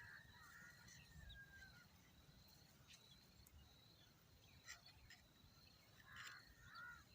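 Faint, scattered bird calls and chirps, a few short ones bunched near the end, over a low background hum.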